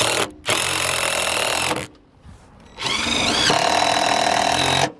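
Cordless drill driving screws through an RV awning arm's mounting bracket into the coach wall, in three runs with short pauses between. In the last run the motor's pitch rises and falls.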